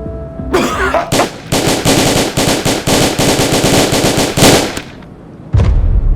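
Machine-gun fire, a rapid run of sharp cracks at about ten a second for roughly three and a half seconds, after a short harsh burst. A low steady drone like an airliner cabin's comes back near the end.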